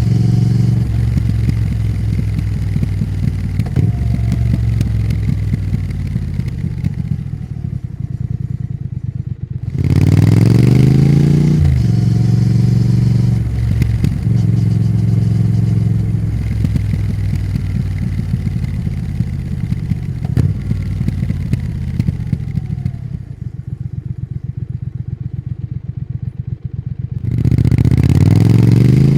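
Triumph Thruxton RS's 1200 cc parallel-twin engine under way, pulling hard with a sharply rising pitch about ten seconds in and again near the end. Between those pulls it runs down with the throttle eased, the pitch falling, and a rapid crackle of popping from the exhaust on the overrun.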